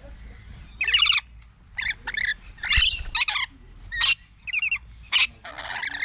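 Rainbow lorikeets calling in a string of short, shrill screeches, about ten of them in quick succession.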